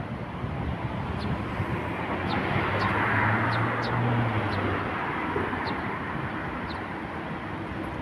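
Street traffic, with a vehicle passing that swells to its loudest about three seconds in, carrying a low engine hum. Short high bird chirps repeat throughout.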